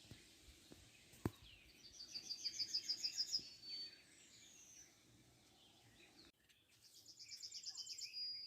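A songbird singing twice: a fast run of about ten high repeated notes ending in a held note, once about two seconds in and again near the end. A single sharp click a little after the first second.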